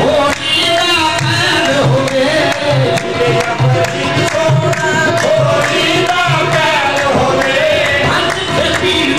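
Qawwali: a qawwali party singing to a steady tabla beat.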